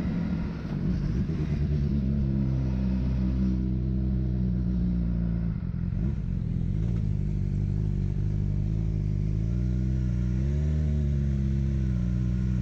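Motorcycle engine running steadily at low road speed, its note briefly rising and falling about ten seconds in.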